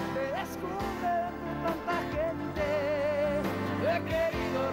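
Opening theme song: a solo singer holding long notes with vibrato over instrumental backing.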